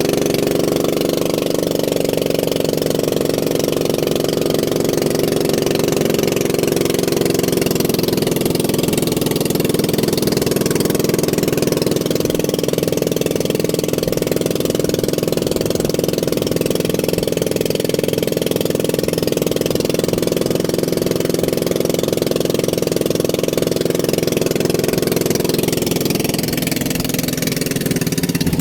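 An engine running steadily at an even speed, its note changing only near the end.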